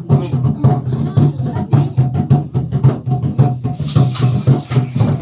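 Fast, even drumming and percussion, several beats a second, accompanying a Limbu Phungsok ritual.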